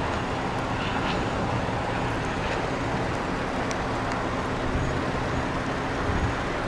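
Steady outdoor rushing noise, with a faint low hum underneath.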